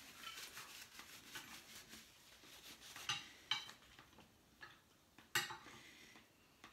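Forks and spoons clinking and scraping against dinner plates as people eat. The clicks are small and faint, with a few sharper clinks about three seconds in and again after five seconds.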